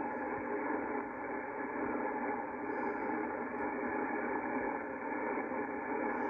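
Yaesu FTdx5000 HF transceiver's receiver audio on the 75-meter band: a steady hiss of atmospheric noise with the highs cut off, the power-line noise pulses nulled out by a QRM Eliminator noise canceller.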